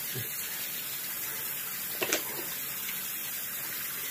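Bathroom tap running steadily into a sink, with a short knock about two seconds in.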